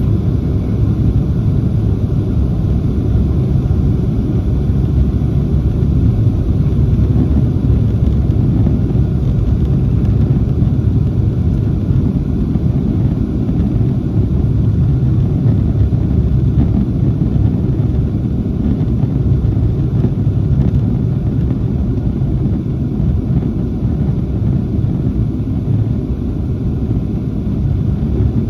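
Steady low rumble of a Boeing 737-700 heard inside the cabin: its CFM56-7B engines and the rush of air along the fuselage, easing slightly near the end.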